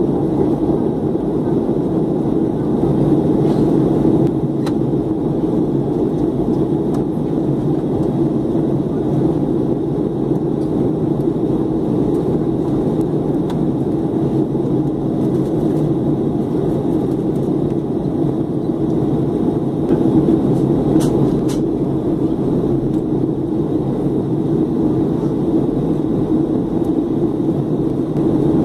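Steady cabin drone inside a Boeing 737-300 airliner, from a seat over the wing: the CFM56 engines and airflow during descent. A couple of faint clicks sound briefly, about five seconds in and about twenty seconds in.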